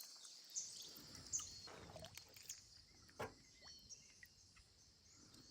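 Faint outdoor ambience: short bird chirps now and then over a steady high hiss, with a few soft knocks.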